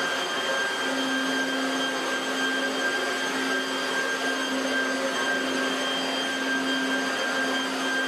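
Corded electric leaf blower running steadily, a constant high whine over the rush of air, as it blows dust off the floor.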